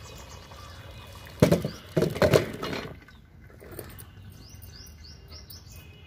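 Boiled petha (ash gourd) cubes and hot water tipped from a steel pot into a perforated steel colander, with loud splashing knocks about one and a half and two seconds in. After that it goes quieter while small birds chirp in quick series.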